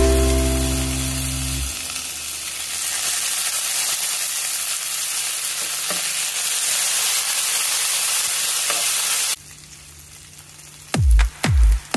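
Garlic, dried red chillies and fresh green leaves sizzling in hot oil in a frying pan, with a wooden spatula stirring them and a single knock about six seconds in. The sizzle cuts off suddenly a little after nine seconds. Music fades out at the start, and a drum beat comes in near the end.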